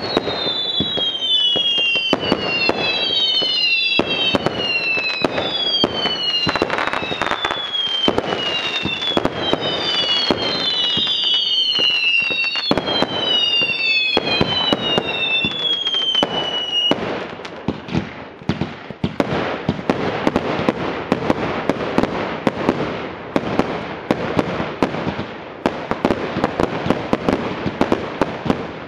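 A consumer fireworks barrage firing. For the first two-thirds, many overlapping high whistles, each falling in pitch, run over rapid pops and bangs. About 17 seconds in the whistles stop, and dense crackling pops and bangs carry on.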